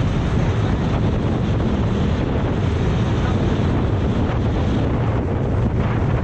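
Outboard motor running steadily as an aluminium boat moves along a river, mixed with heavy wind buffeting on the microphone and water rushing along the hull.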